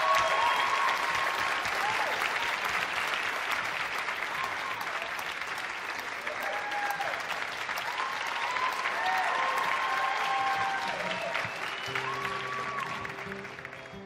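Theatre audience applauding and cheering, with whoops rising above the clapping. Near the end the applause dies down as a few sustained low instrument notes start the song.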